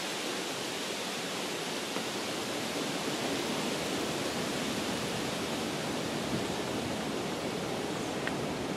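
Wind in the trees: a steady, even rushing hiss with no distinct events.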